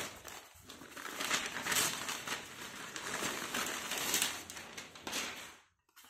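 Crinkling and rustling of book packaging and paper being handled, which stops abruptly near the end.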